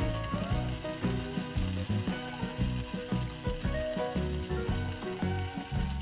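Background music with a steady beat, over a steady sizzling hiss from hot sauced pork ribs.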